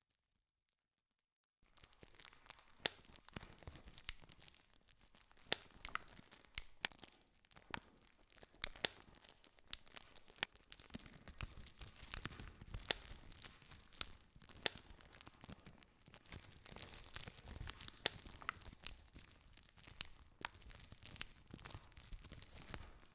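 Campfire crackling: burning wood hissing, with frequent irregular sharp pops and snaps. It starts after about a second and a half of dead silence.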